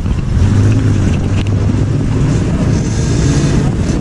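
Engines of a minibus and motor scooters running close by in slow traffic. A steady low engine hum is loudest in the first two seconds.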